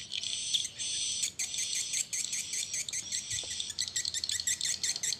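A swiftlet call recording played through a swiftlet-house amplifier's horn tweeters: rapid high-pitched chirping and ticking twitter, thicker and faster in the second half. The passage resembles the calls of swiftlets in courtship, chasing one another.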